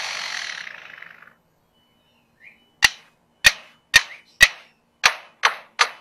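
Superb lyrebird mimicking a camera shutter: seven sharp, separate clicks, coming a little faster toward the end, after a hiss that fades out over the first second.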